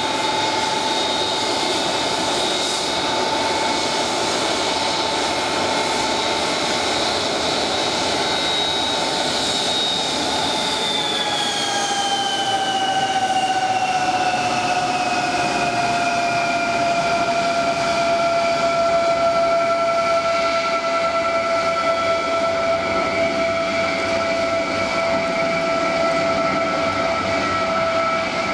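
Vickers VC-10's four rear-mounted Rolls-Royce Conway turbofan engines running at taxi power, a steady whine over a rushing roar. About ten seconds in the whine glides down in pitch and then holds lower as the aircraft passes and turns its tail toward the listener, growing a little louder.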